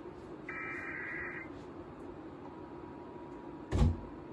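Emergency Alert System SAME header: a harsh digital data burst about a second long, following an identical burst just before. A faint steady tone comes in about halfway through, and a short loud thump sounds near the end.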